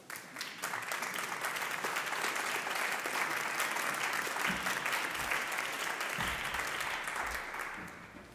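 Audience applauding: a dense patter of many hands clapping that starts at once and dies away near the end.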